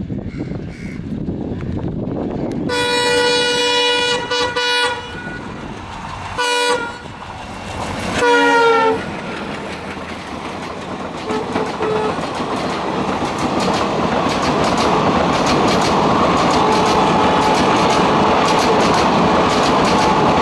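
Indian Railways locomotive horn: a long blast of about two seconds, a short toot, then a third blast that falls in pitch as the locomotive goes past. The train's Deen Dayalu second-class coaches then roll by close at hand with a steady rumble and a rhythmic clickety-clack of wheels over the rail joints.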